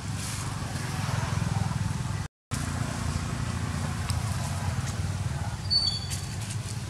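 Steady low drone of a motor vehicle engine running nearby. It breaks off in a short gap of silence a little over two seconds in. A brief high chirp comes near the end.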